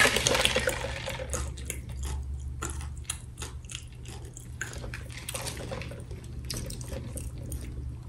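Close-miked eating: wet chewing and mouth clicks, irregular and moist.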